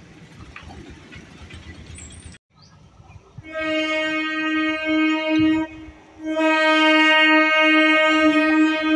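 Electric multiple unit (EMU) commuter train sounding its horn: two long steady blasts, the first starting about three and a half seconds in and the second, after a short break, starting about six seconds in and still sounding at the end. Before the horn, a low rumble of road traffic.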